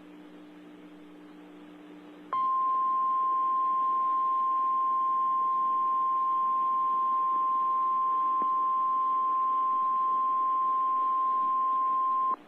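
Emergency Alert System warning alarm tone: faint radio hiss, then about two seconds in a single steady beep-like tone near 1 kHz starts abruptly and holds for about ten seconds before cutting off. A lone tone of this kind is the NOAA Weather Radio 1050 Hz warning alarm, which signals that a warning message is about to be read.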